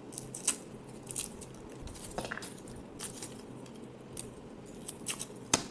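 Garlic being peeled by hand: irregular crisp crackles and clicks of papery skins and cloves being handled, the sharpest about five and a half seconds in.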